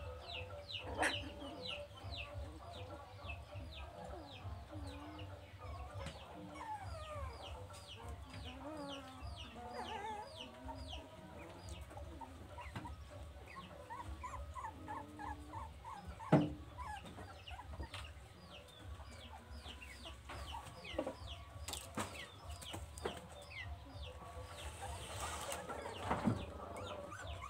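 Chickens clucking, with a steady run of short, high, falling peeps several times a second. A single sharp knock comes about sixteen seconds in.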